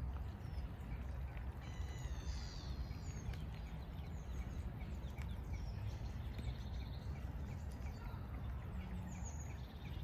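Small songbirds calling: a short high chirp repeated about three times a second, with a brief twittering phrase about two seconds in and another near the end, over a steady low rumble of background noise.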